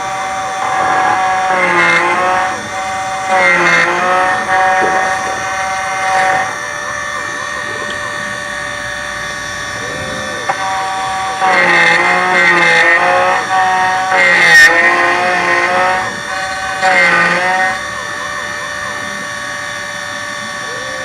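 Miracle A7 Plus key machine's cutter motor running with a steady whine while it cuts a Ford H72 PT key blank by code. The sound repeatedly grows louder and its pitch sags as the cutter bites into the blank, then recovers between cuts. There is one sharp click in the middle.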